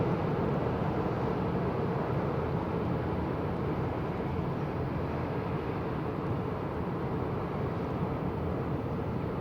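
Steady low rumble of a passing cargo ship's engine, easing off slightly.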